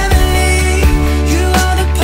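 Background music with a steady beat and a melody over a constant bass.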